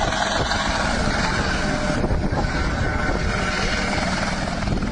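Helicopter rotor and engine running steadily, loud and close.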